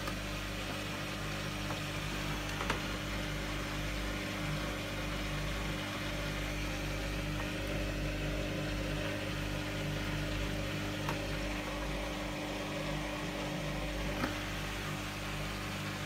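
Hoover front-loading washing machine's drum motor running with a steady hum while the drum turns slowly, trying to balance an unbalanced load before its final spin. There are a couple of faint knocks, one early and one near the end.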